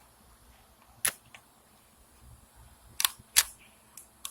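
Ignition switch from a 2009 Ram pickup being rotated by hand, clicking sharply through its positions: one click about a second in, a louder quick pair around three seconds, then a couple of lighter clicks near the end.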